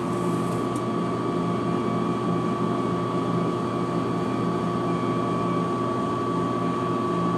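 Pepsi vending machine running with a steady mechanical hum.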